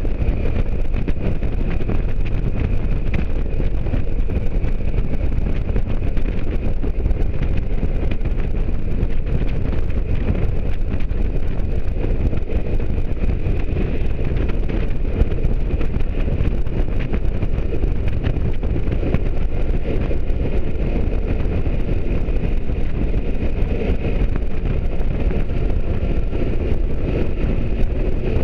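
Motorcycle engine running at a steady cruising speed, mixed with wind rushing over the microphone, heard from the rider's seat behind the windshield.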